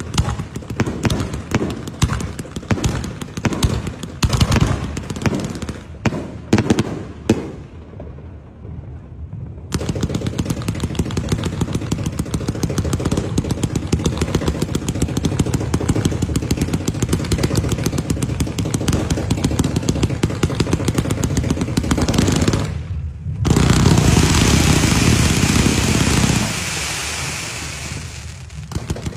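Firework cakes firing: rapid strings of pops and bangs, at times so dense they run together into continuous crackling volleys. Near the end comes a few seconds of loud rushing noise.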